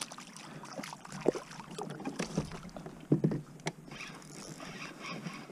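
A striped bass being landed into a plastic kayak: light splashing and a series of irregular knocks and clatters against the hull and gear as the fish is lifted and handled.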